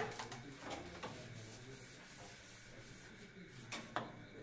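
Carrom striker and wooden coins clicking on a carrom board, with a sharp clack at the start and a few lighter clicks. Between the clicks, the striker rubs and slides on the powdered board surface as it is placed for the next shot.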